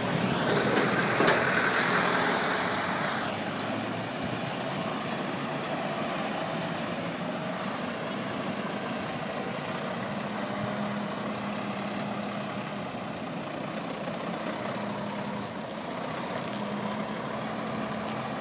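Iveco heavy truck's diesel engine running steadily at low revs as the truck creeps through a manoeuvre, with a hiss over the first three seconds.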